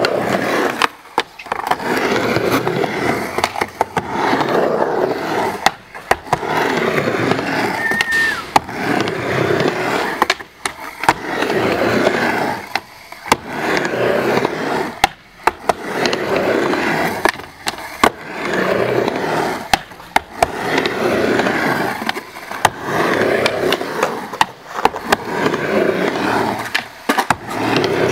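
Skateboard riding back and forth on a mini ramp. The wheel roll swells and fades with each pass, with sharp clacks at the turns.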